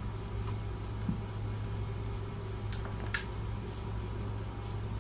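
Clicks from handling a small USB sound card and its cable plugs: a faint click a little before three seconds in, then a sharper click just after, over a steady low hum.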